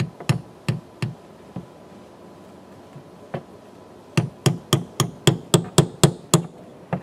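Hammer striking a gasket punch to punch a hole through a blast cabinet's clear plastic media line resting on a wooden block. A few spaced light taps come first, then a quick run of about nine harder blows, roughly four a second.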